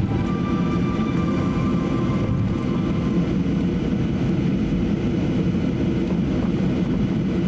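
Cabin noise of a Boeing 737-800 taxiing: a steady low rumble from its CFM56-7B turbofan engines at taxi thrust, heard from inside the passenger cabin.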